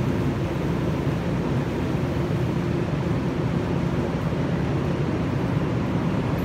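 Steady low rumble of an electric commuter train alongside a busy station platform, unchanging throughout.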